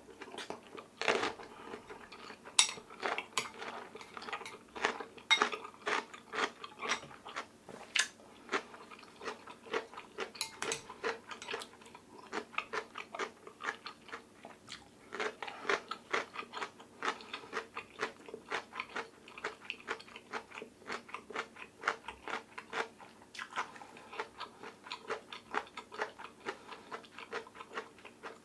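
Close-miked chewing of a mouthful of oyster rice soup (gulgukbap): a steady run of small mouth clicks and smacks, a few a second.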